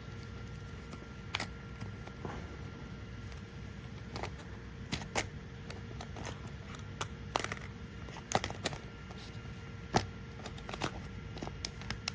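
Irregular clicks and light taps of small hard parts being handled, such as a plastic tool case and metal screwdriver bits. The sharpest click comes near the end, over a faint steady hum.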